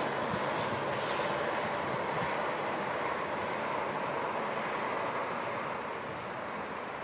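Steady distant city noise, an even rumble and hiss from traffic across the town below, easing slightly near the end.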